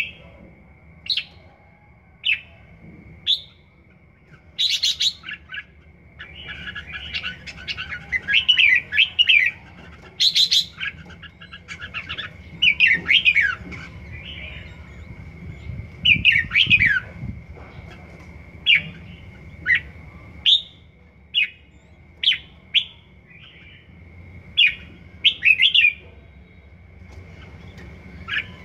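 Caged red-whiskered bulbul singing: a string of short chirps broken by several quick warbled phrases. It is a young first-season bird still practising its song.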